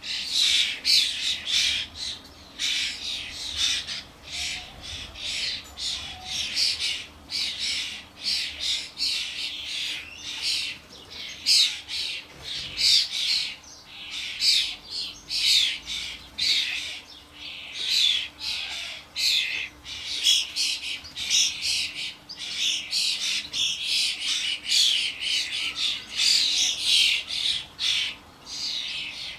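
Common starlings and their fledglings calling at a feeder: a continuous din of harsh, rasping calls, several a second, typical of fledglings begging for food.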